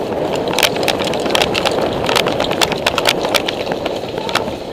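Running footsteps over dry leaves and dirt, with gear rattling and knocking against the body and many irregular sharp clicks.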